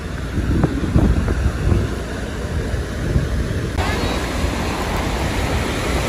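Wind buffeting the microphone with ocean surf washing on the beach. About four seconds in, the hiss of waves breaking close by comes up sharply.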